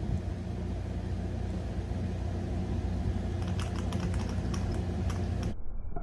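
Fishing leader and hand-held digital scale being pulled under rising load in a crimp strength test: a steady low hum with a run of light clicks and ticks starting about three seconds in. The sound cuts off abruptly about five and a half seconds in.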